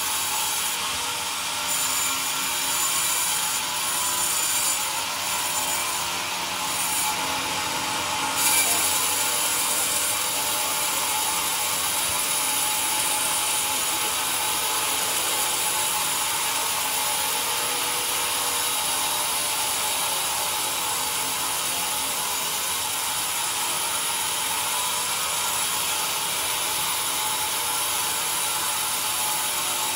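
Log band sawmill's blade running and cutting lengthwise through a pine log on the carriage, a steady high sawing noise with a brief louder moment about eight seconds in.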